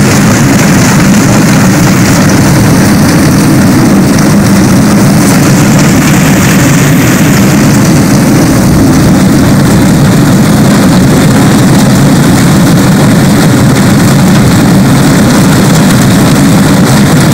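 Small engine of a motorised rail trolley running steadily.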